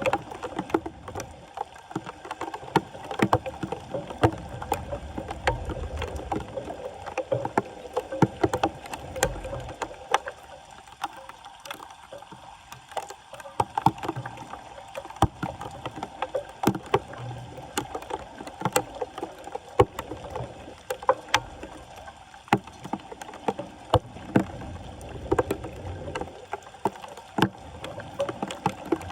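Floodwater splashing and sloshing as a clogged street drain is worked on, with many sharp knocks and scrapes of debris and tools throughout.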